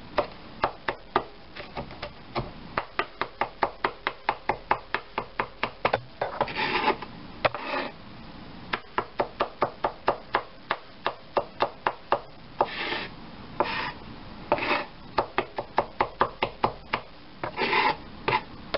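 Chef's knife mincing a shallot on a wooden cutting board: runs of quick, even knocks of the blade against the board, about three to four a second, with short scrapes now and then as the pieces are gathered.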